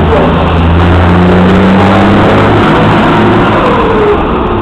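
Semi-truck tractor unit's diesel engine running loud under hard acceleration, a pass in a truck loudness contest; its pitch climbs for about two seconds, then drops back.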